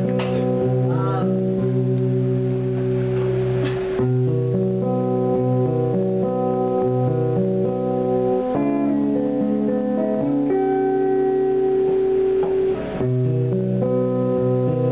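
Acoustic guitar strummed, ringing held chords that change about every four seconds: the instrumental opening of a song, before any singing.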